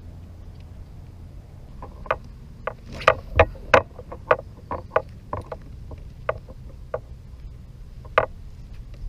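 A run of irregular knocks and taps on a kayak, loudest and quickest a few seconds in, then thinning out, over a steady low rumble of wind and water.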